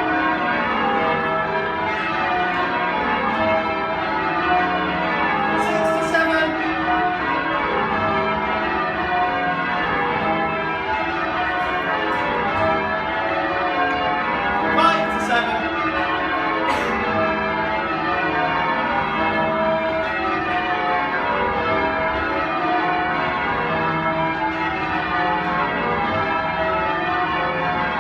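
Ring of ten church bells in change ringing, with a 17 cwt tenor in E. The bells strike one after another in a steady, unbroken run of changes.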